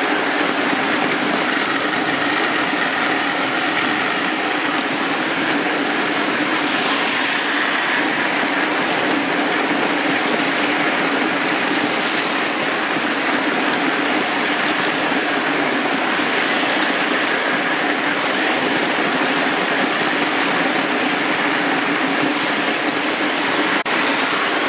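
Marx 1666 toy train locomotive running on tinplate track, heard close up from a car coupled right behind its tender: a steady electric motor whir mixed with the rattle of wheels over the track.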